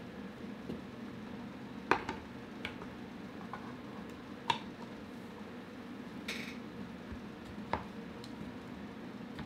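Sharp clicks and light knocks of a Walther Rotex RM8 air rifle's metal action being handled and seated into its wooden stock. The loudest come about two seconds in and four and a half seconds in, with a faint steady hum underneath.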